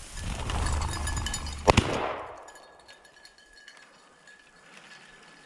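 A single shotgun shot about a second and a half in, sharp and echoing briefly, after a second of rushing noise.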